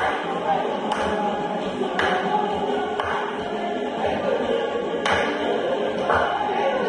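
Samba music: a group of voices singing together over percussion, with a strong stroke about once a second.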